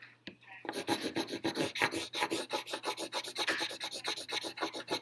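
Pencil scratching on paper in quick back-and-forth shading strokes, about eight a second, starting about half a second in.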